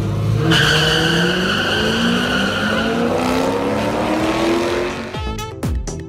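A drag-racing car launching hard: tyres squeal at the launch and the engine's pitch climbs steadily as it accelerates down the strip. Music with a heavy beat cuts in about five seconds in.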